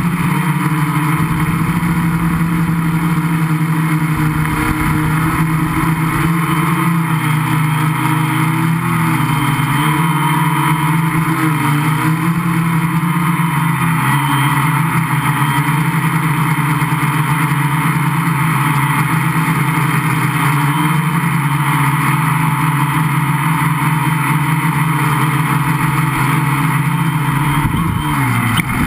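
Gaui 500X quadcopter's electric motors and propellers droning steadily, heard loud and close from a camera mounted on the craft. The pitch wavers a little with the throttle, and near the end the motors spin down with a falling whine as it sets down on the grass.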